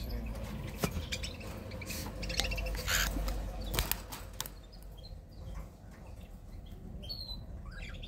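Cockatiels chirping a few times, with wings flapping and scattered knocks and rustles.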